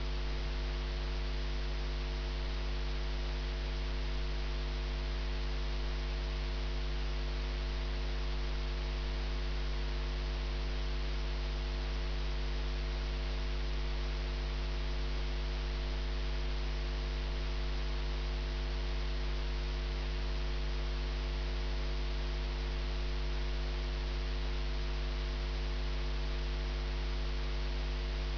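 Steady electrical mains hum, a low buzz with a ladder of higher tones above it, over a light even hiss.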